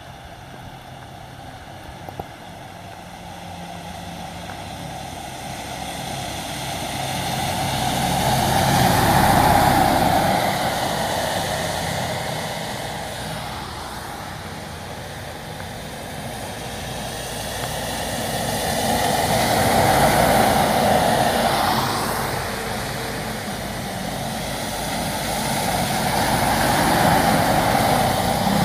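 Trucks and other road vehicles passing one after another on a wet highway. Engine noise and tyre hiss from the wet road swell up and fade three times: about a third of the way in, about two-thirds in, and again at the end.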